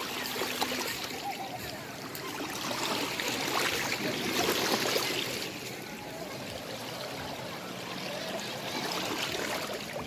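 Shallow seawater washing and trickling over shoreline rocks, swelling louder about three to five seconds in before settling back.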